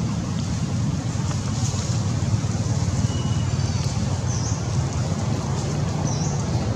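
Wind rumbling on the microphone outdoors, a steady low buffeting, with a few faint short high chirps about midway and near the end.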